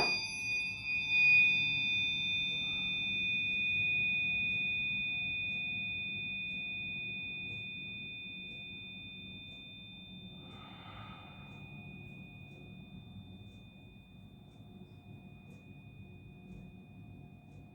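Tuning forks ringing with two steady high pure tones, struck just before and slowly fading away. A faint, brief breathy sound comes about eleven seconds in.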